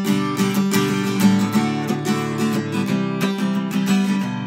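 Acoustic guitar strummed in a steady rhythm of chords, the instrumental intro before the singing comes in.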